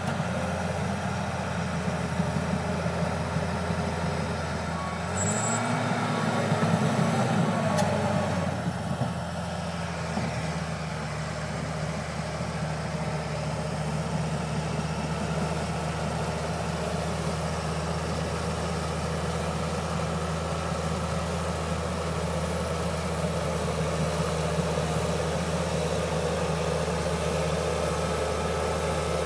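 John Deere 700H crawler dozer's diesel engine running steadily under work, rising in pitch and loudness for a few seconds about five seconds in, then settling back to a steady run.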